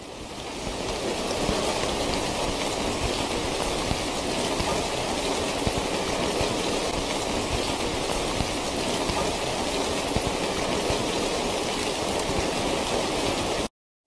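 Steady heavy rain, a dense even patter with no single drops standing out, fading in over the first second or so and cutting off abruptly shortly before the end.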